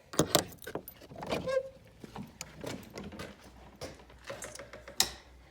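Keys rattling and a series of small clicks and knocks from a lock and door being handled, with one sharp click about five seconds in.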